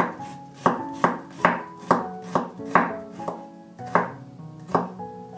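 Kitchen knife thinly slicing a garlic clove on a wooden cutting board: a sharp chop of the blade against the board about twice a second, coming a little more slowly near the end.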